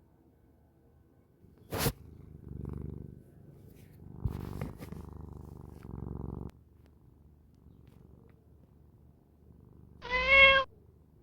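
Domestic cat purring in a few low stretches, with a sharp click just under two seconds in and a short meow near the end, the loudest sound.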